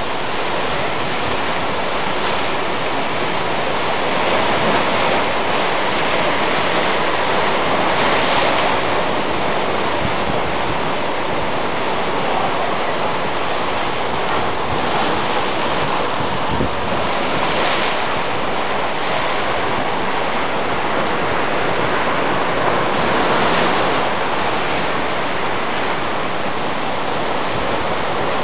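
Ocean surf: a steady wash of breaking waves, swelling louder every several seconds as sets come in.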